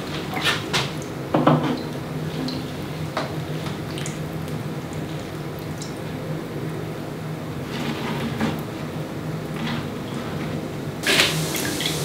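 Water pouring from a plastic watering can into potted houseplants, with scattered light knocks and clatter from handling the can and pots, and a louder knock near the end.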